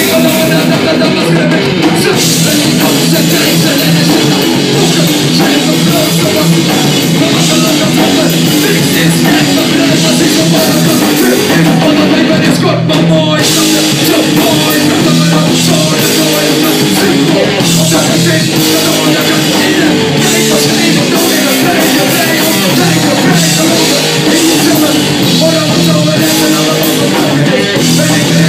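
Heavy rock band playing live: drum kit and electric bass, loud and dense without a break.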